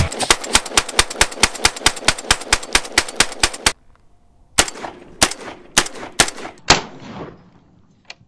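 Typhoon Defense F12 gas-operated semi-automatic 12-gauge shotgun firing a fast string of about two dozen shots. After a brief pause come about five more spaced shots, each with a ringing tail.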